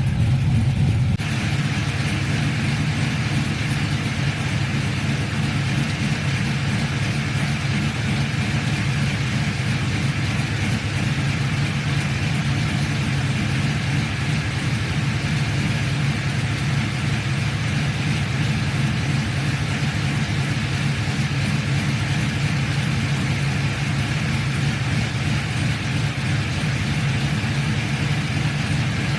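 Cammed LS V8 of a 2000 Chevy Silverado idling steadily, with its electric radiator fans blowing. The sound steps slightly quieter about a second in, then holds even.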